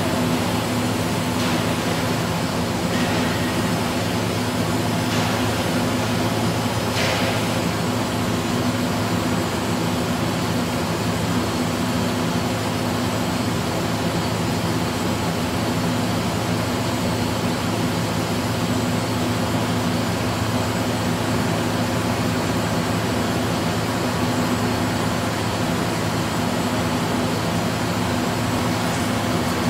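Kitamura HX400iS II horizontal machining center running its CNC turning function on an S45C carbon-steel part: a steady machine drone with a constant low hum, with a few brief hissing streaks in the first several seconds.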